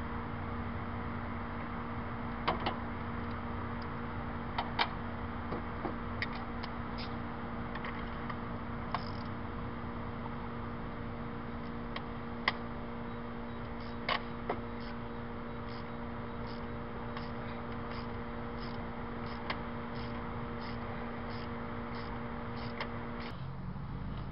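A steady hum with scattered light metallic clicks from hand tools working at the engine's spark plug wells. In the second half the clicks come evenly, about two a second. The hum cuts off abruptly near the end.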